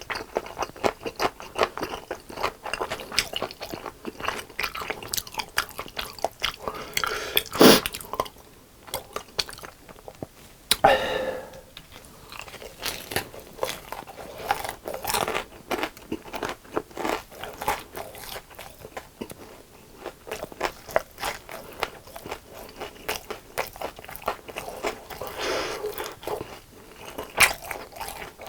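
Close-miked crunching and chewing of crispy fried chicken: a dense run of irregular crisp crunches, with a few louder bites.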